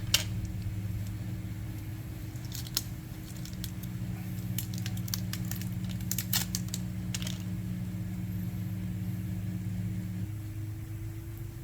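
Tire plug kit parts handled, giving scattered small clicks and crackles over a steady low hum. Part of the hum drops out near the end.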